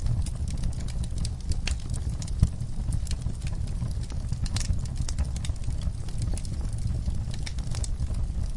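Wood fire burning in a fireplace, crackling with irregular sharp pops over a steady low rumble. One louder pop comes about two and a half seconds in.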